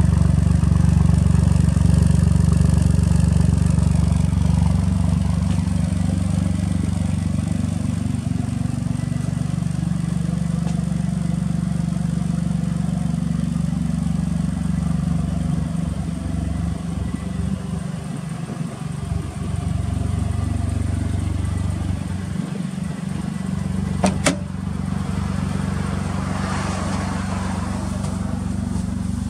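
Suzuki Cappuccino's K6A three-cylinder turbo engine idling steadily through an aftermarket muffler. A single sharp click comes about three-quarters of the way through.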